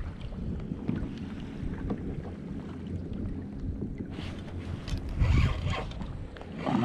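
Wind noise on the microphone over open water, a steady low buffeting with a louder burst about five seconds in.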